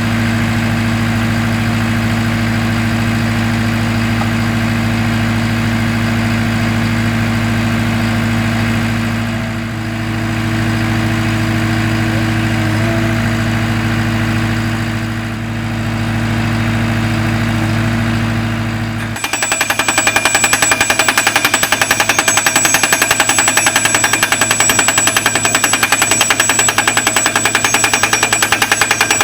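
Skid steer engine running steadily, then about two-thirds of the way through a hydraulic skid-steer post driver (Rhino Solar Pro) starts up abruptly, hammering fast and evenly and much louder as it drives a solar mounting post into the ground.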